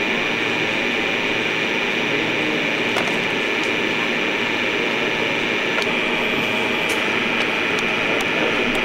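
Steady running noise of a train in motion, heard from the driver's cab, with a constant high hum over it and a few faint clicks.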